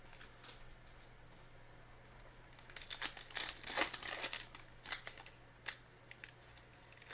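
Foil trading-card pack wrapper crinkling and tearing as a pack is opened, in a cluster of sharp crackles starting a few seconds in and lasting about three seconds.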